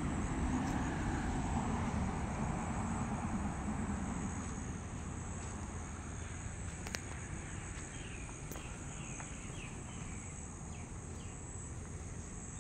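Steady high-pitched chorus of insects such as crickets, over a low outdoor rumble that fades after the first few seconds. In the second half a run of short, quick chirps comes through.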